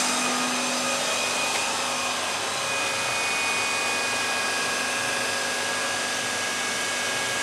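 Steady motor whir of workshop machinery running, with a couple of faint high whining tones held over it.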